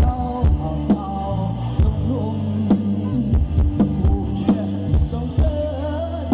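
Live band music from a Thai rot hae parade truck, played loud through its sound system: a steady drum-kit beat over heavy bass with a wavering melody line.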